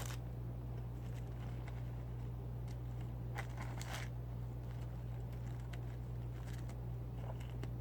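Quiet eating sounds: a few faint clicks and crackles of chewing and handling fried chicken and fries, the clearest a little past the middle. A steady low hum underlies them.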